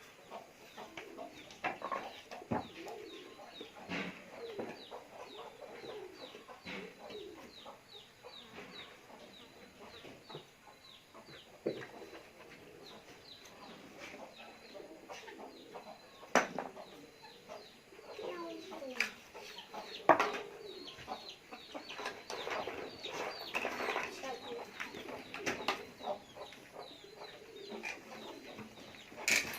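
Chickens clucking and cheeping in quick, repeated short high calls, broken by a few sharp knocks, the loudest about two-thirds of the way in.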